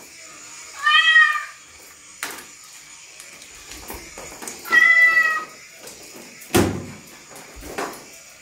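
Two drawn-out cat meows, about a second in and about five seconds in, with a few sharp knocks between them, the loudest about six and a half seconds in.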